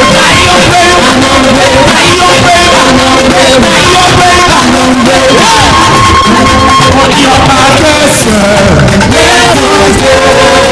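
Loud live church praise music: a band playing with voices singing held notes.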